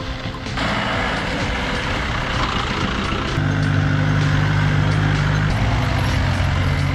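Mahindra off-road jeeps driving past on a wet, muddy road: the hiss of tyres on the wet surface, then a low, steady engine note that gets louder about three and a half seconds in as one passes close.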